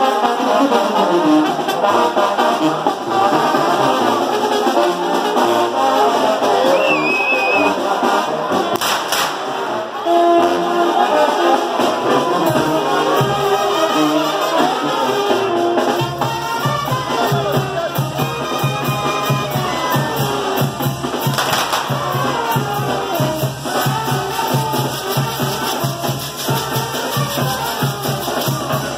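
Brass band music with trombones and trumpets, a steady beat coming in about halfway through, over the crackle and pops of a torito's fireworks.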